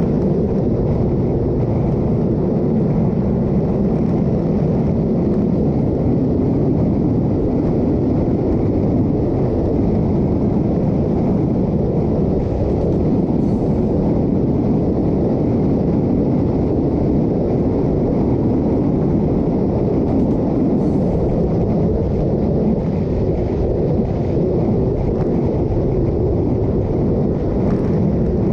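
Steady wind rush buffeting the microphone on a motorcycle travelling at about 100 km/h, with engine and road noise mixed in underneath.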